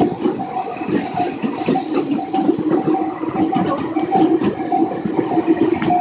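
Railway level-crossing warning bell ringing in a steady repeating chime, about two strikes a second, over the running noise of a train passing on the track.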